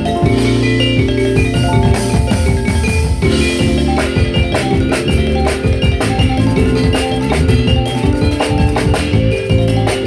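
Live ethnic-fusion band playing: mallet-struck metallophones ringing in quick note patterns over drums and a moving bass line.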